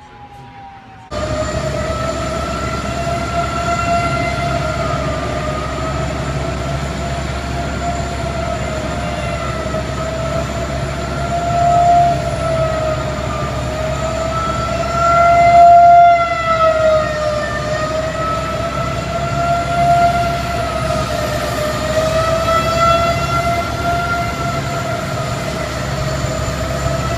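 Outdoor tornado warning siren sounding a steady tone that wavers slowly in pitch and loudness, swelling louder twice around the middle. It starts abruptly about a second in.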